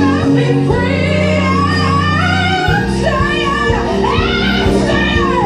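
Loud music with a singing voice over sustained bass notes, the bass line changing about two and a half seconds in.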